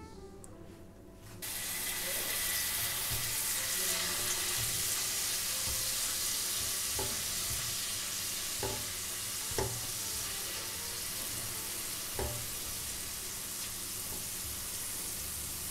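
Ginger-garlic paste sizzling in hot oil, starting suddenly about a second and a half in as the paste drops in, then a steady frying hiss as a silicone spatula stirs it, with a few short knocks of the spatula against the pan.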